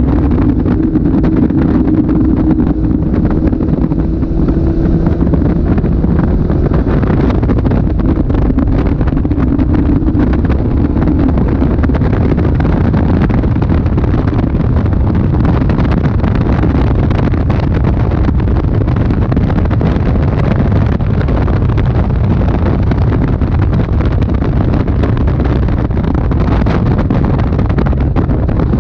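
Caterham Super 7 driven at speed, its engine running under load, heard from the open cockpit with heavy wind buffeting on the microphone. The engine note stands out fairly steadily for the first ten seconds or so, then sinks into the wind noise.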